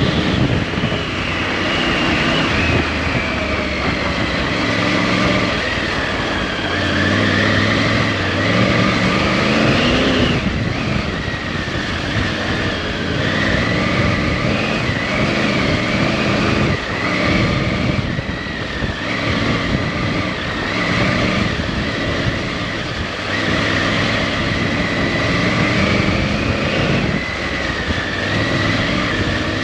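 Off-road motorcycle engine running under way, its revs rising and falling as the rider works the throttle and gears, climbing to a peak and dropping off about ten seconds in, over a steady rush of noise.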